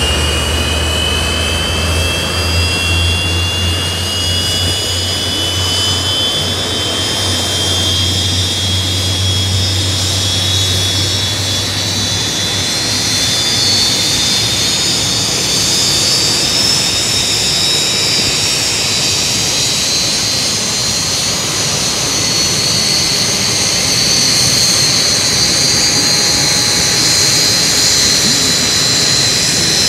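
Jet aircraft engine noise: a loud, steady roar with a high whine that rises slowly in pitch. A low hum underneath stops about twelve seconds in.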